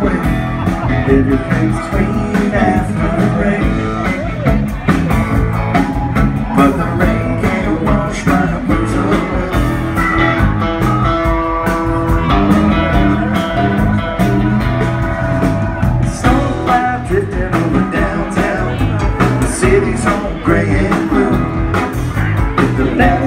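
A live rock band playing a song, with a drum kit, bass guitar, electric guitar and keyboards and a steady drum beat. Held melodic notes ring out through the middle.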